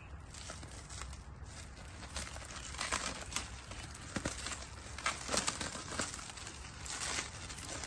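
Plastic stretch wrap crinkling and tearing as hands pull it off, in irregular bursts of crackling that are loudest in the second half.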